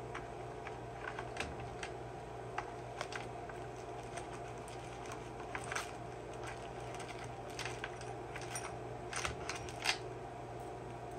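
Light, scattered clicks and rattles of a chainsaw's saw chain being pulled off the sprocket and handled, with a few quick clusters of clicks, over a steady low hum.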